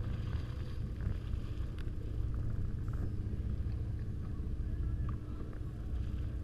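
Sportfishing boat's engine running steadily: a low rumble with a constant hum, and a few light knocks.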